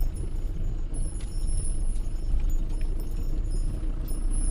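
Fiat Scudo camper van driving, heard from inside the cab: a steady low engine and road rumble.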